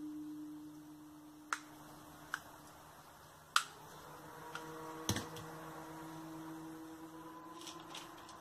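A low drawn-out droning tone with several overtones, the strange trumpet-like sound from the sky. It fades about three seconds in and comes back slightly higher. Four sharp clicks cut across it, the loudest about three and a half seconds in.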